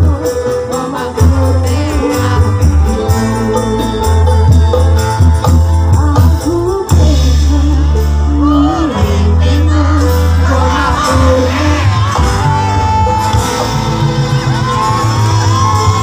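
A live band playing a song through a PA system, with a woman singing lead over a strong, steady bass line.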